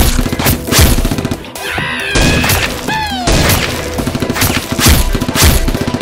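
Action-movie gunfire sound effects: a rapid string of sharp shots with several heavier booms, and a couple of whistling, falling tones, over background music.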